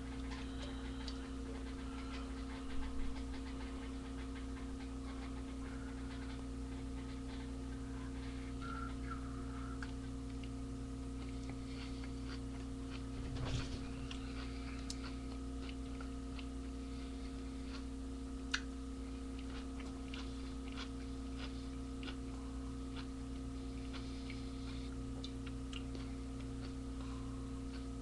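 Steady electrical hum made of several constant tones, with scattered faint clicks and ticks over it. There is a brief louder sound about 3 seconds in, a short low sound about 13 seconds in, and one sharp click a few seconds later.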